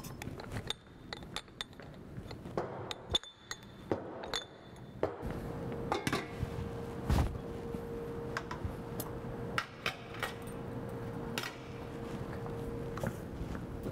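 Glassware and stainless-steel chafing dishes clinking and knocking as they are handled and set out, in scattered sharp clinks. A steady hum comes in about five seconds in and stops shortly before the end.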